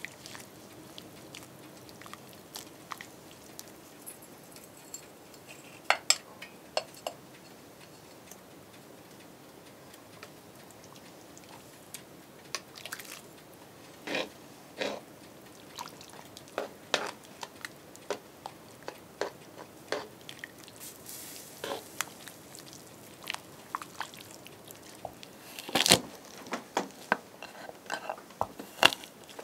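Scattered clinks and knocks of a metal ladle and spoon against an aluminium cooking pot as the stew is stirred. In the last few seconds, a kitchen knife chops on a wooden cutting board, the loudest knocks.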